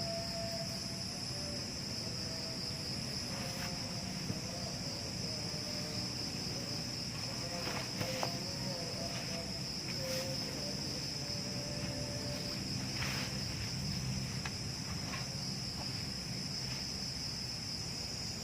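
Steady, unbroken high-pitched chorus of crickets or similar insects, with faint wavering lower tones and a few light clicks beneath it.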